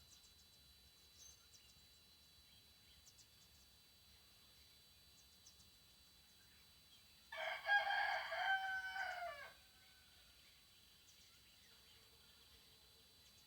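A rooster crows once, a single call of about two seconds, over a faint steady background.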